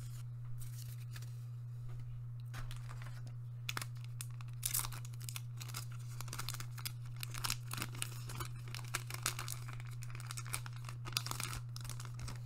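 A foil trading-card booster pack being torn open and crinkled by hand. Short crackling rips come a few at first, then thick and fast from a few seconds in to near the end, over a steady low hum.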